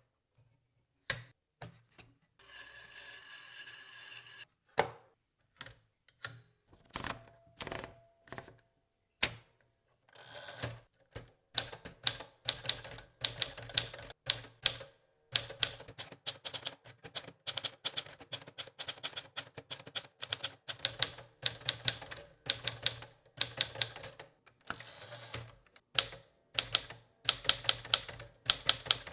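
1956 Smith-Corona Silent-Super manual portable typewriter being typed on. A few separate clacks and a stretch of steady noise lasting about two seconds come first. From about ten seconds in, rapid keystrikes follow in a steady run.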